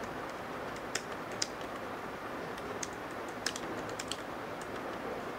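Laptop keyboard being typed on: a handful of sharp, irregularly spaced keystrokes over a steady low hiss.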